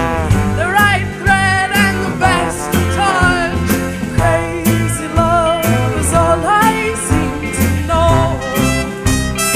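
Live band music: a lead melody line sliding in pitch over bass and a steady drum beat, in a swing and blues style.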